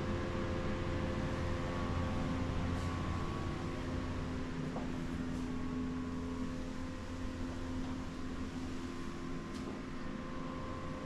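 Steady low mechanical hum from a running motor, holding several constant tones, with a few faint ticks.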